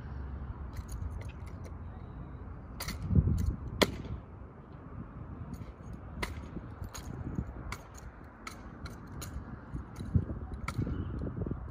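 Exhibition drill rifle being spun, tossed and caught: a scattered series of sharp slaps and clicks of hands striking the rifle, with two loud cracks about three and four seconds in, and a few dull thuds.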